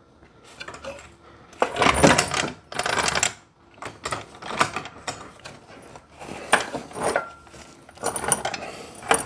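Metal equipment clanking and rattling as it is handled: several separate metallic clatters, the loudest about two seconds in.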